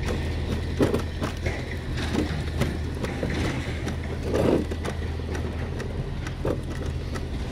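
Natural-gas garbage truck engine running with a steady low hum, with scattered clicks and knocks over it and one slightly louder knock about four and a half seconds in.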